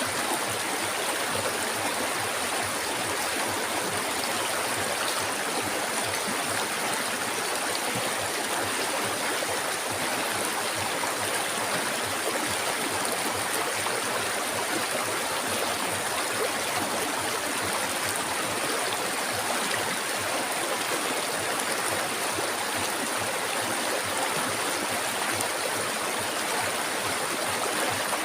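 Flowing river water making a steady, unbroken rushing babble.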